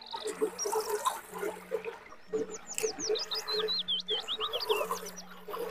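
Close-miked chewing and mouth sounds of a person eating raw leafy greens (lalapan), irregular and a couple of times a second. A bird sings a rapid run of chirping notes from about two seconds in until about five seconds in.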